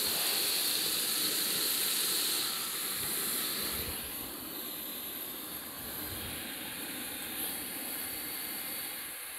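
Steady sizzling hiss of food frying in oil in a large paella pan (a plow disc) over a high-heat gas burner, growing a little quieter about three to four seconds in.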